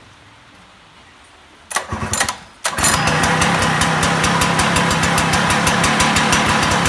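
Robin EC12 small two-stroke engine being started: about two seconds in it fires irregularly for under a second, falters, then catches and runs steadily with a rapid even firing beat.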